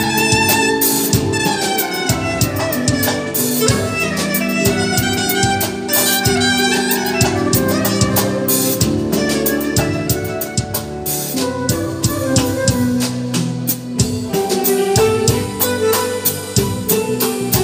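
Clarinet playing an ornamented Turkish song melody over a drum kit and percussion accompaniment with a steady beat.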